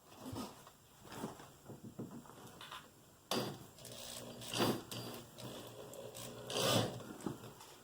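A few light knocks and handling clicks. Then, from about three seconds in, a cordless drill/driver runs in short surges, driving screws into the pre-drilled holes of a widebody side skirt.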